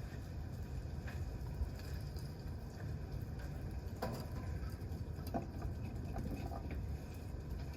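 Wood campfire crackling, with scattered sharp pops, the clearest about four seconds in, over a steady low rumble.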